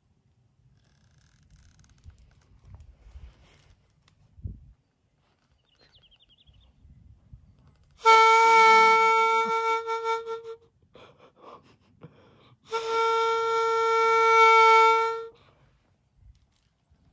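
Horagai conch-shell trumpet blown in two long, steady notes of the same pitch, each about two and a half seconds, with a pause of about two seconds between them.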